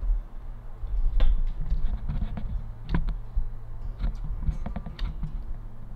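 A run of light, irregular clicks and taps, about a dozen of them, over a low steady hum.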